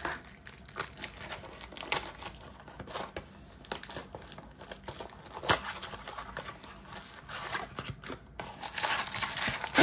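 Packaging of a 2023 Bowman retail blaster box of baseball cards being torn open and handled: scattered crinkles and ticks, then a louder tearing rustle near the end.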